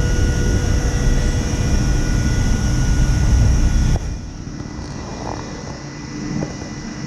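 Wheel balancing machine spinning the motorcycle's rear wheel with a steady whine, then stopping abruptly about four seconds in. This is a balance check run after the wheel weight is fitted.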